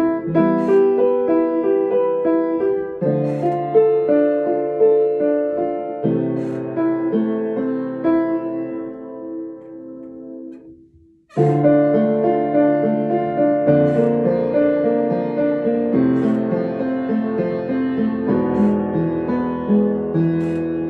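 Upright piano playing a slow piece in chords, each new chord struck about every second or so. About eleven seconds in the playing dies away almost to silence, then starts again at full strength.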